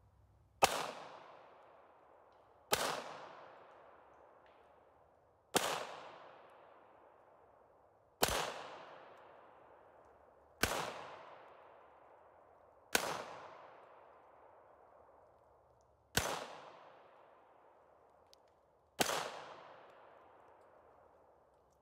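Handgun fired eight times, one deliberate shot every two to three seconds, each crack followed by an echo that dies away over a second or two.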